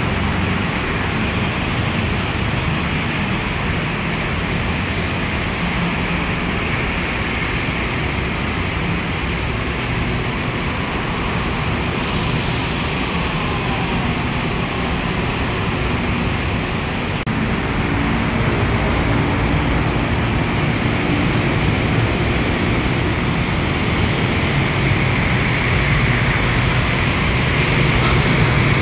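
Yellow Line Innovia Monorail 300 train pulling into an elevated station with a faint falling whine. About seventeen seconds in the sound changes suddenly to a steady mix of monorail train running and road traffic.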